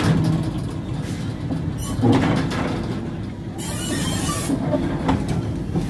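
Goods wagons of a slow freight train rolling past, wheels clattering over the rail joints with sharp clanks from couplings and buffers. A short burst of hiss comes about three and a half seconds in.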